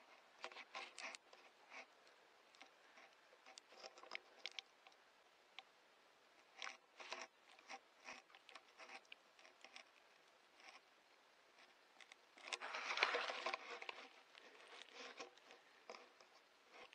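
Scattered soft rustles and short crackles, like dry leaves and twigs being disturbed, with a louder, longer scraping rustle about thirteen seconds in.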